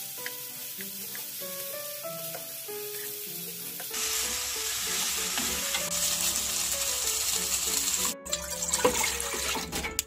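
Fish cakes and sausages sizzling as they stir-fry in oil in a pan, the sizzle getting louder about four seconds in, under soft background music. Near the end, after a brief break, come a few sharp knocks and clinks.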